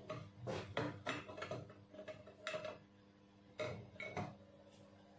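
Metal parts of a gas cutting torch clinking and knocking as the clamping nut is tightened to hold the mouthpiece in the torch head: a string of short knocks, then two more about three and a half to four seconds in.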